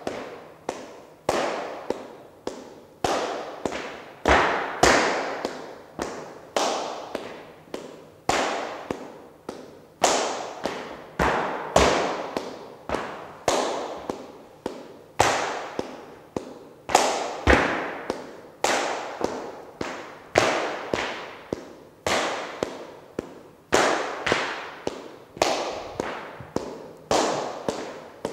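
Palmas: hand clapping keeping a steady sevillanas rhythm, a run of sharp claps with a louder accent about every two seconds. Each clap rings briefly in the bare, hard-floored studio.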